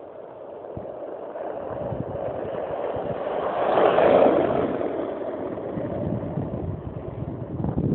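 Skateboard wheels rolling fast on an asphalt path as a rider lying on the board passes close by: a rising rumble that peaks about four seconds in, then fades as the board moves away. Near the end a loud surge of wind noise hits the microphone.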